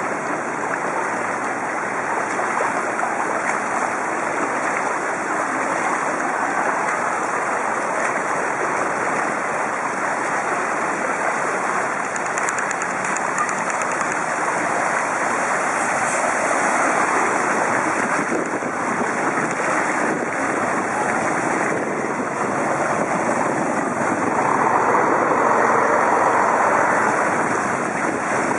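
Steady rushing noise of a bicycle riding through shallow floodwater, the wheels cutting through the water, mixed with harsh wind noise on the bike-mounted camera's microphone. It swells louder near the end.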